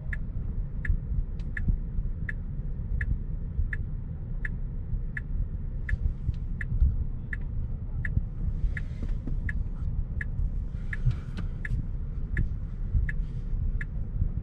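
A Tesla's turn-signal indicator ticking steadily, about three ticks every two seconds, signalling a right turn, over the low hum of city traffic heard from inside the cabin.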